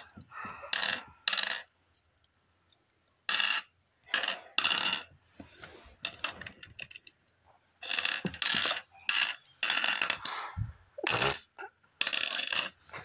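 Small glass gem stones clinking as they are dropped into the hollows of a wooden mancala board and knock against the stones already there. The clinks come in irregular runs.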